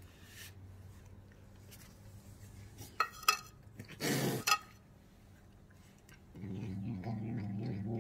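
A few light metal clinks from a cat feeding at a stainless steel bowl of tuna, then a short rustling burst about four seconds in. In the last couple of seconds a steady low hum sets in.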